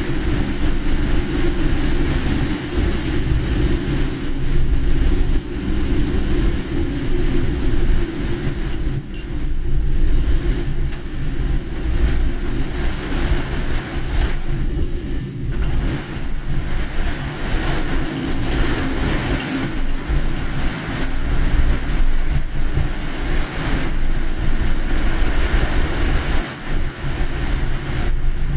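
A car driving: a steady low rumble of engine and tyres, with a hiss of noise above it.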